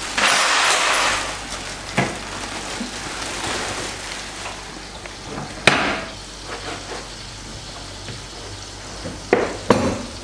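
Thin plastic bag crinkling and rustling, loudest in the first second and a half, as the bread inside it is handled. A few sharp knocks of dishes on the counter break in, the loudest about halfway through and a quick cluster near the end.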